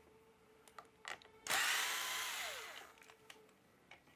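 A small cordless electric screwdriver runs for about a second and a half, starting about a second and a half in. Its whine drops in pitch as the motor spins down while it backs out the cover over the crank-mounted power meter's battery. A few light clicks come before and after it.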